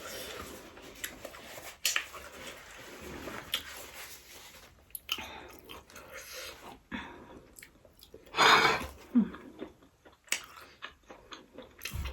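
Close-up chewing and mouth noises of someone eating fried rice, with irregular small crunches and clicks and one louder, longer noisy burst about eight seconds in.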